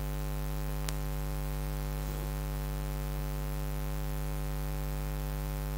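Steady electrical mains hum with hiss from the hall's sound system, a low buzz with a stack of overtones. A single faint click about a second in.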